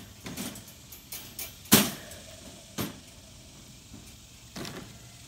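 A white PVC pipe being pushed and clipped onto the wall of a wire dog crate: several sharp knocks and clacks of plastic against the metal wire. The loudest comes a little under two seconds in.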